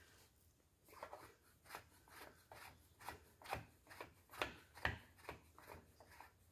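Light, irregular taps, about three a second, on a cam bearing driver bar, driving a cam bearing into the cam tunnel of a Pontiac 400 cast-iron block. The taps build up in strength toward the middle.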